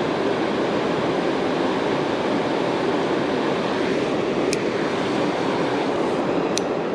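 Steady rushing of river water, with two short, sharp ticks in the second half.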